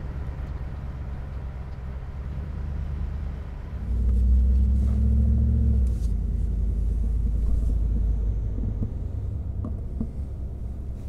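Ford 5.0L Coyote V8 idling through a Flowmaster FlowFX Extreme single turn-down cat-back exhaust: a low, steady rumble heard from outside beneath the truck. About four seconds in the sound switches to inside the cab, where it is a deep, louder drone, with the revs easing back down toward idle.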